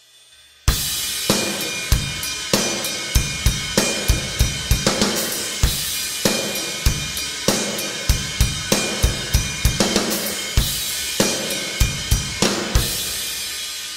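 Isolated rock drum kit track: after a brief faint lull, the kit comes in with a loud crash about a second in and plays a steady beat of bass drum, snare and cymbals, with a short break right at the end.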